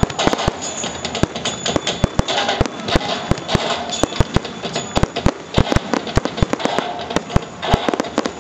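Fireworks display: aerial shells and rockets bursting in a rapid, irregular string of sharp bangs, several a second, over a steady crackling hiss.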